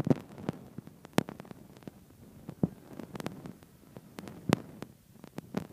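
A dozen or so sharp, irregular clicks and knocks, spaced unevenly, over a quiet background.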